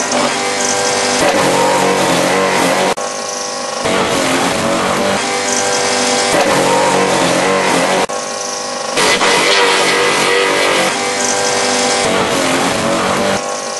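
Garden shredder running loudly, grinding branches fed into its hopper, its sound dipping briefly about every five seconds.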